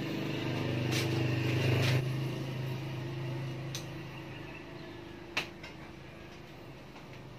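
A motor vehicle's engine hum swells and then fades away within the first few seconds. Over it come a few light clicks from parts being handled at the motorcycle's handlebar, the sharpest about five seconds in.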